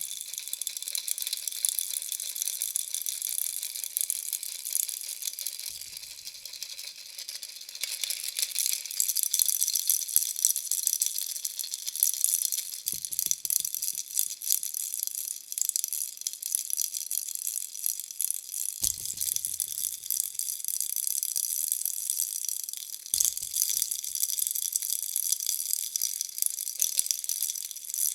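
Bunny baby-rattle toy shaken continuously, giving a dense, high-pitched rattling. Four brief low knocks from handling come through, about 6, 13, 19 and 23 seconds in.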